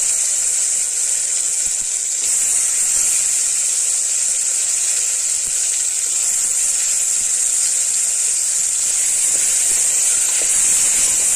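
Oil sizzling in an aluminium pressure cooker as chopped brinjal, tomato and shallots fry: a steady high hiss, with a wooden spatula stirring now and then.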